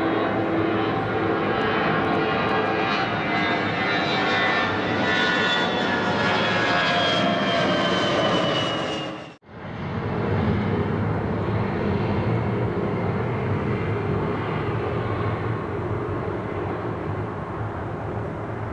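Airbus A320 jet engines passing low overhead with the landing gear down, a whine that slides down in pitch over a steady roar. About halfway the sound drops out abruptly for a moment, then a lower rumble without the whine comes back and slowly fades as the jet flies away.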